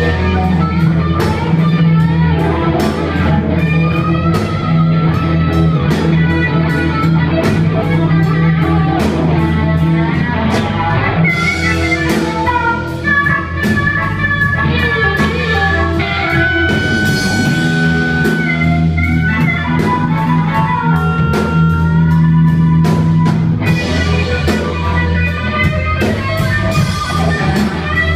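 Live blues-rock band playing: electric guitar, bass and drum kit keep a steady groove while a harmonica, played into a handheld mic, carries the lead with held and bent notes.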